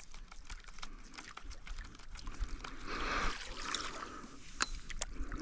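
Small water splashes and drips around a kayak, with scattered light clicks and a louder brief rush of water about three seconds in.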